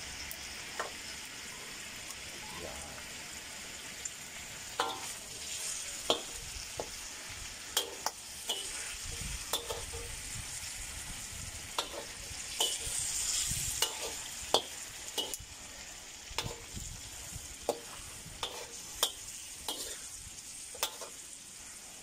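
Chicken and pork pieces sizzling as they are browned in a steel wok, with a metal ladle scraping and knocking against the wok as they are stirred. The sharp taps come irregularly.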